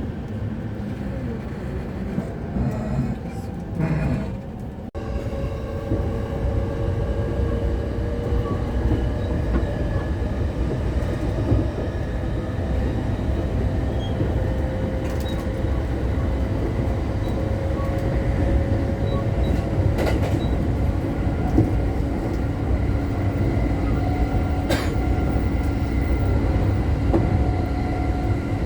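Cabin sound of a JR East E231-series commuter train running: steady wheel and track rumble with a motor whine that rises slowly, and a few short clicks and knocks.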